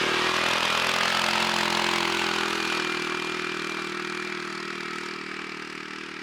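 An engine running steadily, gradually fading over the few seconds.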